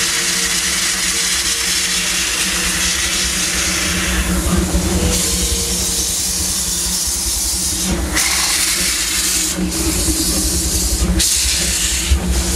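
Steam locomotive No. 3 "Fred Gurley", a 2-4-4T tank engine, hissing steam steadily as it moves off, the hiss changing in tone a little after four seconds in and again around eight seconds in.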